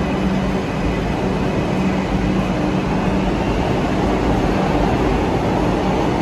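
Kolkata Metro train running: a loud, steady rush of train noise with a faint low hum underneath.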